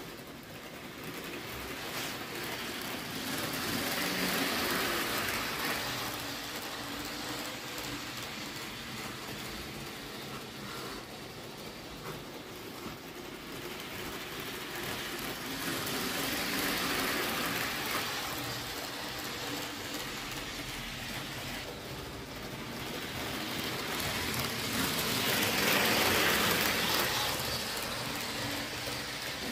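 H0-scale AVE 103 model train running around an oval layout: a steady hiss of wheels and motor on the track that swells three times, roughly every ten seconds, as the train passes close.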